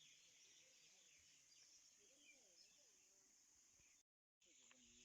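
Near silence: faint outdoor background hiss, broken by a brief total dropout about four seconds in, after which faint voices begin.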